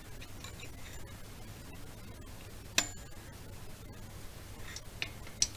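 A metal rod clinking against the cylinders and pushrod tubes of a VW T3 CT engine as the tubes are nudged into line: one sharp clink with a short ring about halfway through, then a few lighter ticks near the end, over a faint low hum.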